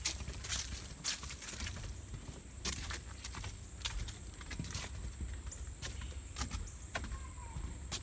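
Footsteps of a person walking along a path, sharp irregular steps about once or twice a second, over a steady high-pitched hiss and a low rumble.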